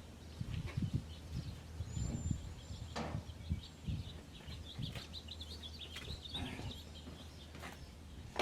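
Scattered light clicks and knocks of parts and tools being handled, over a steady low hum. A small bird chirps a quick run of high notes from about four to seven seconds in.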